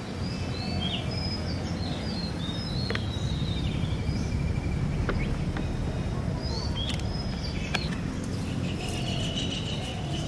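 Birds chirping in short repeated notes over a steady low outdoor rumble, with a few sharp clicks.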